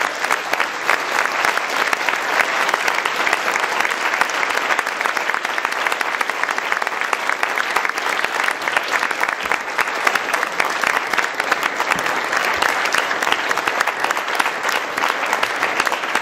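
Audience applauding, many hands clapping steadily throughout.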